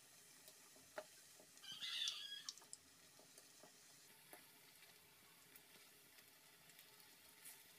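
Faint steady sizzle of batter-coated sukhiyan balls deep-frying in coconut oil. There is a light click about a second in and a brief, louder, higher-pitched sound around two seconds in.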